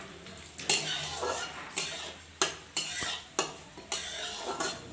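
Metal spatula scraping and clinking against a steel kadai in irregular strokes while whole spices are stirred in hot oil, with faint sizzling underneath.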